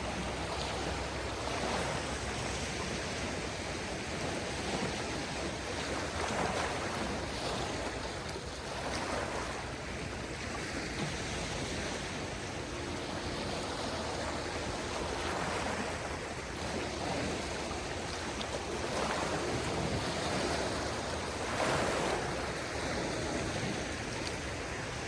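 Small waves of a calm sea washing onto the shore, a steady wash of water that swells each time a wave comes in, every few seconds.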